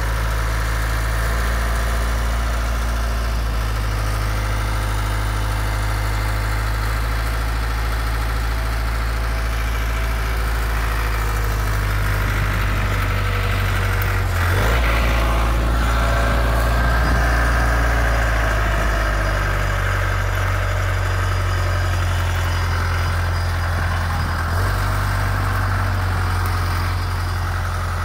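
Engine of a Dion F4 tracked forwarder running steadily. About halfway through it rises in speed under load, with a higher whine over it for a few seconds, then settles back.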